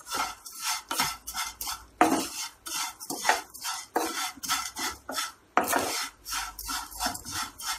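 Wooden spatula stirring vermicelli in a nonstick frying pan: a quick run of scraping strokes, about three a second, as the dry strands are tossed and roasted in a little oil until light brown.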